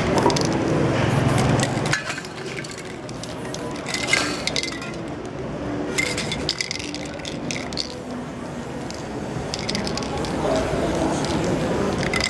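Aerosol spray-paint cans hissing in short bursts, several times, with clinks of the cans being handled.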